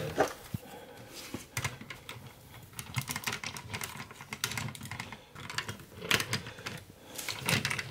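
Hard plastic parts of a Transformers Cybertron Metroplex figure clicking and knocking as the crane arm is handled and fitted on. There are scattered sharp clicks from its stiff joints.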